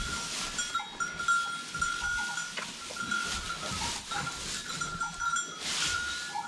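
Hay rustling in bursts as it is pushed and pulled around a wooden cattle manger by hand, with a few low knocks against the wood. A thin, high ringing tone keeps breaking off and coming back.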